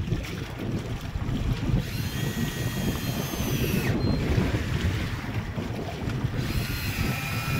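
Wind buffeting the microphone over choppy sea from a small boat, a constant low rumble. Twice, for about two seconds each, a high-pitched whine rides over it.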